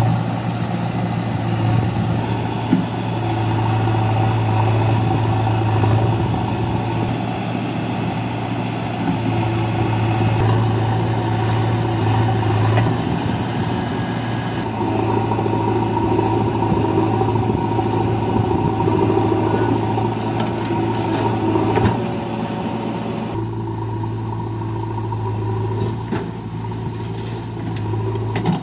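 Diesel engines of a Mahindra 585 DI tractor and a JCB 3DX backhoe loader running together in a steady hum. The engine note shifts a few times as the backhoe works.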